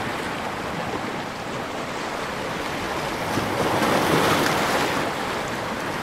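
Ocean surf washing on a beach: a continuous rushing of waves that swells louder about three and a half seconds in, then eases off.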